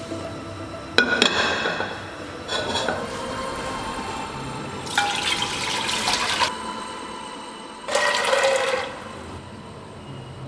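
Water being poured in four short pours, each lasting about a second, the longest in the middle, over faint background music.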